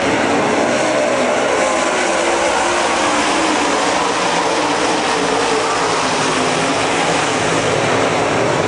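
A field of dirt late model race cars racing on a dirt oval, their V8 engines running hard in a loud, steady drone whose pitch wavers up and down as the cars go through the turns.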